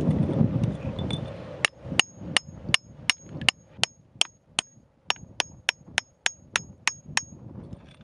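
Scraping and crunching of a metal chisel working in gravelly rock, then a steady run of about seventeen hammer blows on the chisel, about three a second, each with a short metallic ring.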